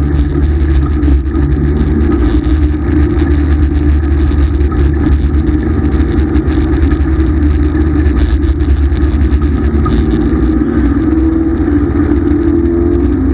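Race car engine heard from inside the cockpit, running loud and steady under way, its pitch wavering a little and rising slightly near the end.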